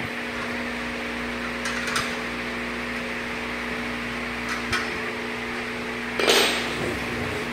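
Small steel bolts and frame parts being handled and fitted into a steel machine stand: a few light metal clicks, then a short louder clatter about six seconds in, over a steady hum.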